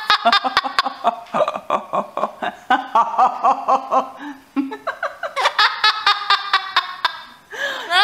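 Amazon parrot letting out fast runs of short, laugh-like ha-ha calls, with a brief pause partway through. Near the end a new, drawn-out call begins that rises and falls in pitch.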